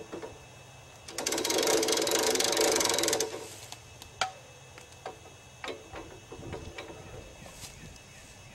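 Two-stroke chainsaw engine firing and running for about two seconds with a rapid, even ticking, then cutting out abruptly; a few light clicks and knocks of handling follow.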